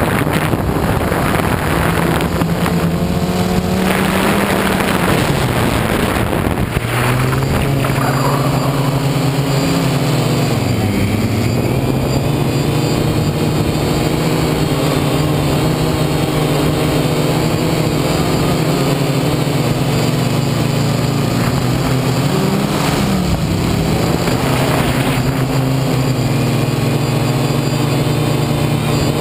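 DJI Phantom 1 quadcopter's electric motors and propellers buzzing, heard from the onboard camera: a steady hum whose pitch drops and rises a few times as the motors change speed, with a few bursts of rushing wind noise.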